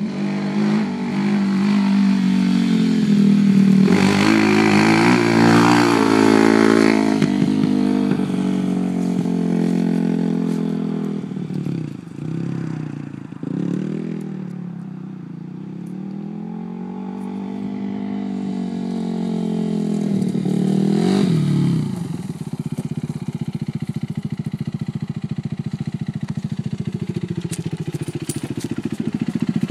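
Suzuki LTR 450 quad's single-cylinder four-stroke engine running with the revs rising and falling. It climbs a few seconds in, drops briefly about midway, sinks and builds again slowly, then holds steadier near the end.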